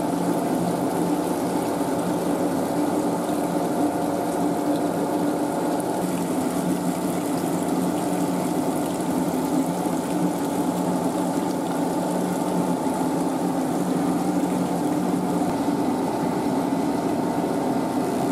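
Poha-making machinery running steadily: a motor-driven roller and gear train humming, with water running from hoses into the soaking trough.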